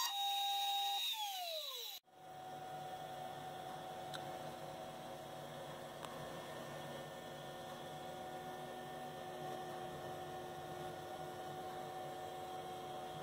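CNC router's spindle whining as a V-bit engraves wood, then winding down with falling pitch about a second in. After a sudden cut about two seconds in, a steady hum with a faint tone holds.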